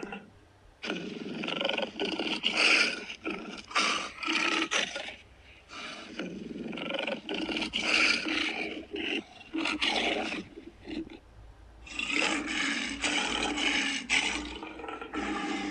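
Custom-made Godzilla roar sound effect: three long roars of about four to five seconds each, with short breaks between them.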